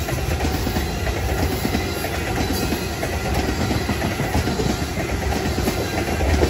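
Freight train tank cars rolling past, their steel wheels rumbling and clicking steadily on the rails.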